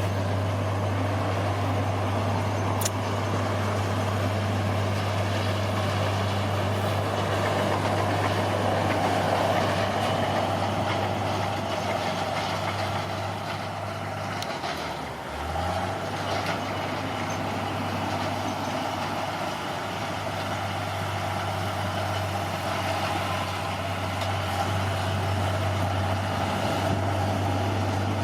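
Bulldozer's diesel engine running steadily, its note dipping briefly about halfway through before coming back up.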